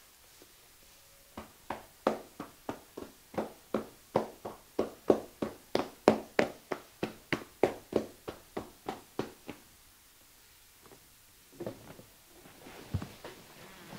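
Hands tapping on a body in percussion massage: a steady run of strikes about three a second that starts a little over a second in and stops after about eight seconds. A few softer knocks and rustling follow near the end.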